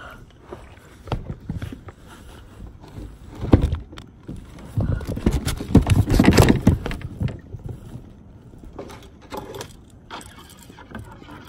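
Irregular knocks, rubbing and rustling from handling close to the microphone, loudest about three and a half seconds in and again from about five to seven seconds in.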